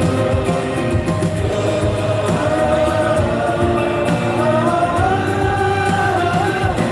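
Hebrew song playing: a singing voice holds long, wavering notes over steady instrumental accompaniment.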